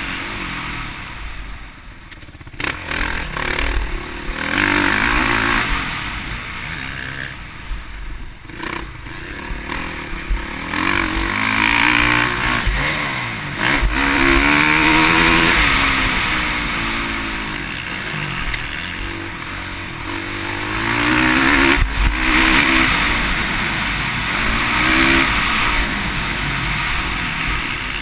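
Motocross bike engine heard from a camera mounted on the bike, revving up and falling back again and again as the throttle opens and closes around the dirt track.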